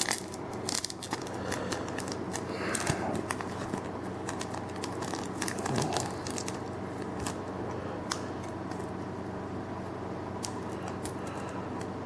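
A Yu-Gi-Oh! booster pack wrapper crinkling and crackling as it is worked open by hand, a pack that is hard to open. The crackles come thick at first and thin out in the second half.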